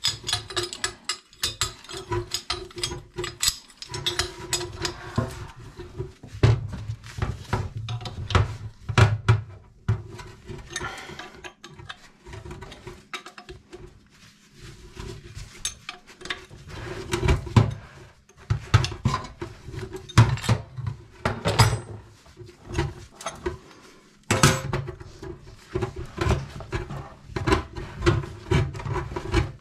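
Irregular metallic clinks, knocks and scrapes of tools working on a faucet mixer and its hose fitting to take them apart. The fittings are corroded fast and won't come loose.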